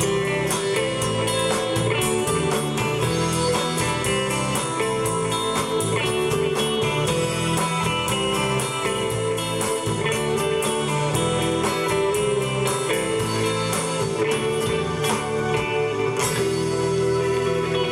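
Live rock band playing an instrumental passage with no vocals: guitar over steady drums and bass.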